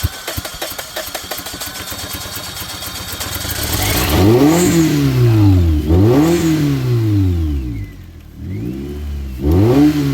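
Toyota engine, its intake and valve cover full of airsoft BBs, running unevenly for the first few seconds, then revved up and down four times, the last two blips close together near the end.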